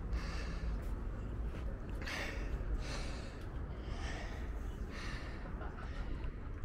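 A person breathing hard, about one breath a second, with a steady low wind rumble on the microphone.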